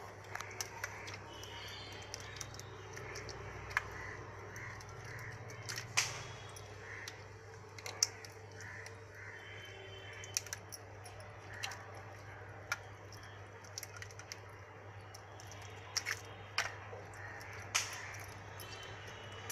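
Blue crabs being cleaned by hand: irregular sharp cracks and snaps as shells and legs are pulled apart, with a bird calling repeatedly in the background.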